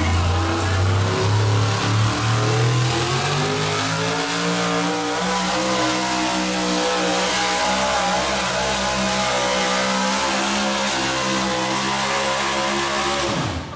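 Pulling truck's engine running hard under load as it drags a weight-transfer sled down the dirt track. Its pitch climbs over a couple of seconds, then holds high and steady until it cuts off abruptly near the end.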